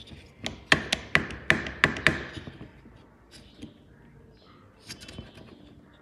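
Plastic door handle mechanism of a Beko washing machine door clacking as it is worked by hand: five sharp clacks in quick succession in the first couple of seconds, then a few fainter clicks.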